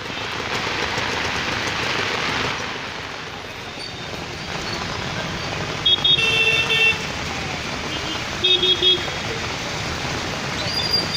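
Steady noise of rain and street traffic, swelling as a vehicle passes in the first couple of seconds. Short vehicle horn beeps come in pulses about six seconds in and again about eight and a half seconds in.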